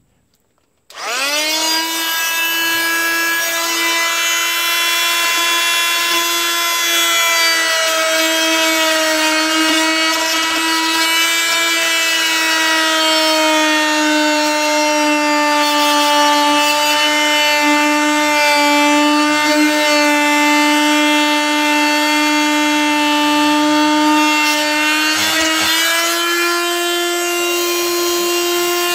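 Oscillating multi-tool starting up and cutting along a line in a camper's FRP roof panel: a loud, steady buzz that winds up to speed about a second in, sags a little in pitch under load, and rises slightly near the end as the blade eases off.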